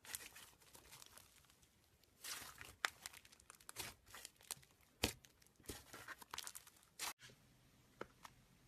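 Slime being squished and pulled by hand, making irregular sticky crackles, pops and tearing sounds. It stops abruptly about seven seconds in, leaving only a couple of faint clicks.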